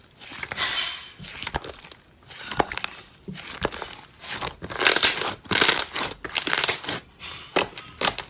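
Hands squishing and stretching slime, making crinkly crackling noise in repeated bursts with sharp sticky pops.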